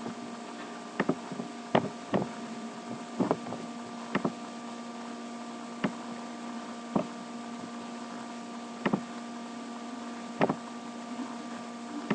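Computer mouse clicking, about ten short sharp clicks spaced a second or two apart, some in quick pairs, over a steady hum.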